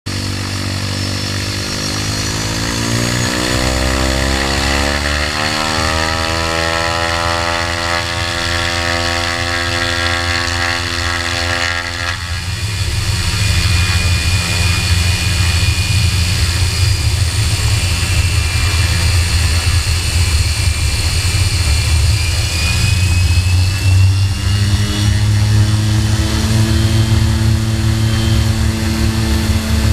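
Air Tractor crop duster's engine and propeller, heard close up from under the wing. A hum of evenly spaced tones climbs in pitch over the first few seconds and then holds. About twelve seconds in, the sound turns louder and rougher as power comes up for the take-off run, and a faint high whine rises later on.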